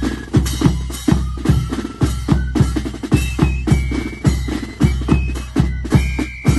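A marching band playing a tune: a bass drum beats steadily about three times a second under snare drum, with high, held melody notes above.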